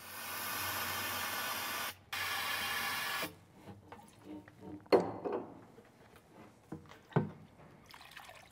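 A steady hiss lasting about three seconds, broken briefly near two seconds, then light splashing and a few knocks as old hydraulic oil is tipped out of a two-post lift's plastic oil tank into a metal waste-oil drum.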